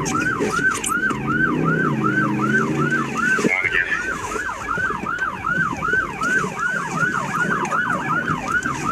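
Police car siren in yelp mode, a rapid repeating rise and fall of about three sweeps a second.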